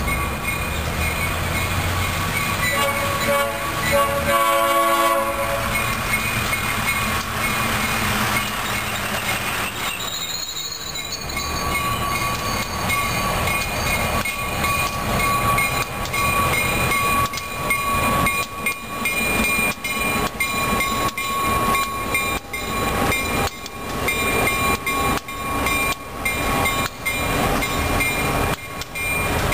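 EMD MP15AC and GP38-2 diesel locomotives approaching and passing close by. The air horn sounds one long blast about three seconds in. Wheels clack over the rail joints as the engines go by in the second half, over the steady run of the diesels.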